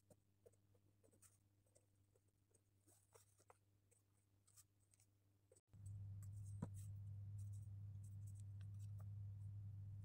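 Faint pen scratching on paper, in small irregular strokes and ticks. About halfway through, a steady low hum cuts in abruptly and then dominates, with a sharp click a second later.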